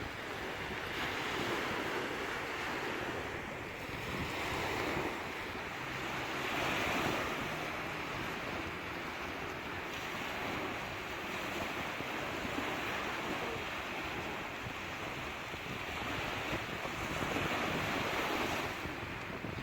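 Sea waves breaking and washing on a shore, a steady rushing surf that swells and falls every few seconds, with wind noise on the microphone.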